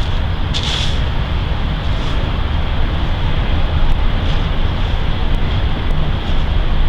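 Wind buffeting the microphone: a steady low rumble with a fainter hiss over it.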